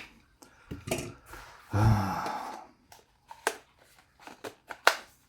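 Handling noises as a car vacuum's plastic parts and cord are fitted into its padded fabric case: scattered clicks and knocks with rustling. A short low hum from the person packing comes about two seconds in.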